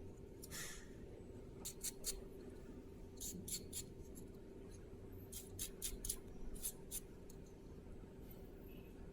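Small hardware being handled by hand: light, sharp clicks and short scratchy scrapes in quick clusters, over a steady faint hum.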